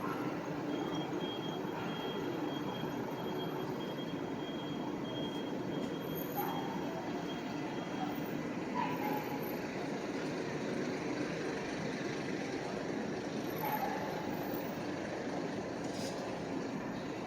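A train running past with steady rail noise, and a thin high squeal through the first several seconds.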